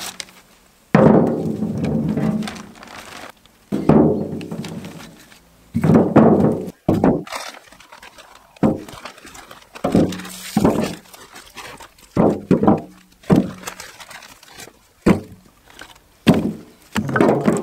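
Split firewood logs tossed one by one into a wheelbarrow, each landing with a thunk. The first few ring on in the nearly empty tray; as the load builds, they come quicker as shorter, duller knocks.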